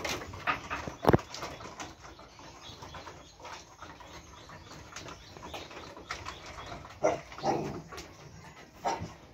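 Boer goats moving about on a slatted wooden pen floor: hooves knock and clatter on the slats, with one sharp knock about a second in. Late on, a goat bleats.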